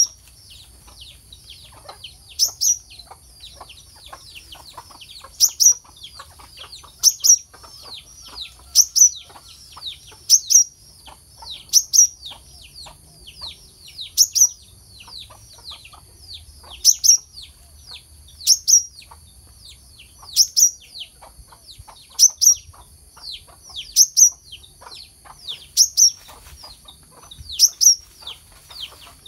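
Brown-throated sunbird (kelicap mayang kelapa) calling: sharp, high, down-sweeping chirps repeated every second and a half to two seconds, over a steady high hiss.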